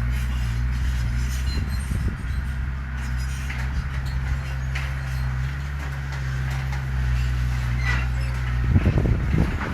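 Heavy diesel engine of earthmoving machinery running steadily under load, with scattered metallic clanks. About nine seconds in it briefly runs louder and rougher.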